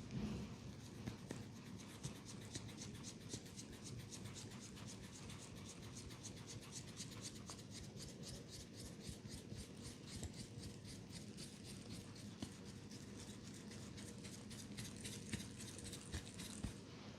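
Hands rubbing and scratching through hair and over the scalp in a head massage: a faint, fast, even run of short scratchy strokes, several a second.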